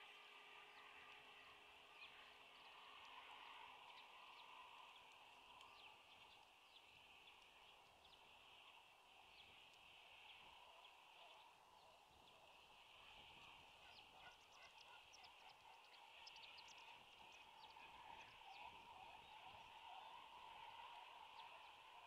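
Faint natural ambience: a steady background hiss with distant small birds chirping, the chirps more frequent in the second half.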